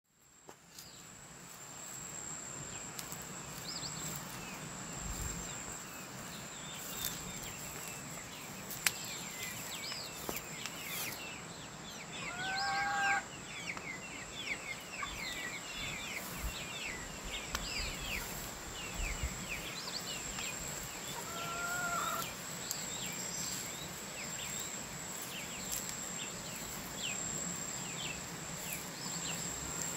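Outdoor garden ambience in a tropical setting: a steady high-pitched insect drone with many small birds chirping. Twice, near the middle, a louder fowl-like call stands out above them.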